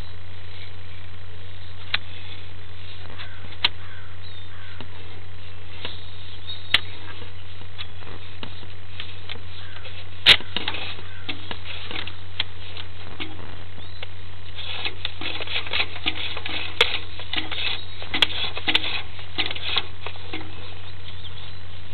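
Steady low electrical hum on a sewer inspection camera's audio line, with scattered sharp clicks and ticks that come thicker in the second half as the camera head is pushed into root-filled pipe.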